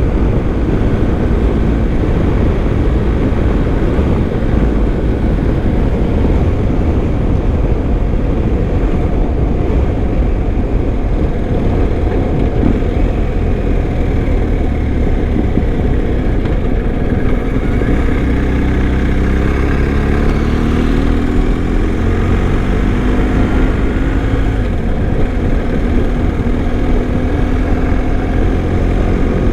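BMW R1250 boxer-twin motorcycle riding along under steady wind and road noise, its engine note rising and falling about halfway through as the bike changes speed.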